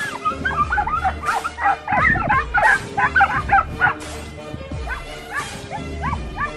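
A pack of boar-hunting hounds baying and yelping on the chase, many short overlapping cries at once, thickest over the first four seconds and thinning out toward the end.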